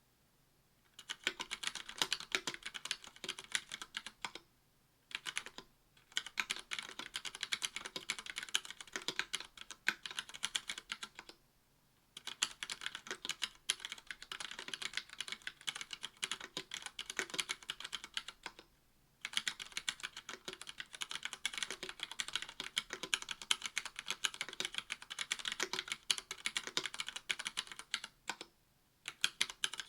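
Fast typing on a KBD67 V2 MKII mechanical keyboard with stock Cherry MX Red 45 g linear switches, a brass plate and GMK keycaps: quick runs of key presses beginning about a second in, broken by brief pauses about four, eleven, nineteen and twenty-eight seconds in.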